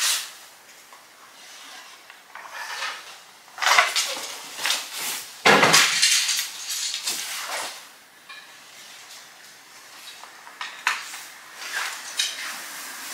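Iaido swords being drawn, swung and returned to their scabbards by several practitioners: a run of scrapes and metallic clinks of blades and fittings, loudest about five and a half seconds in.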